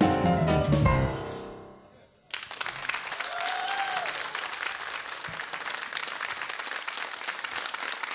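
A jazz piano trio with string quartet plays its final chord, which rings and fades over about two seconds. After a short silence the audience breaks into steady applause.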